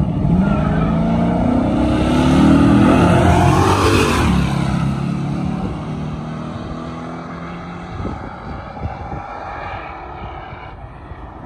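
Drag-racing cars accelerating hard down the strip, their engines climbing in pitch through gear changes. They get loud as they pass close about four seconds in, then drop in pitch and fade as they run away down the track.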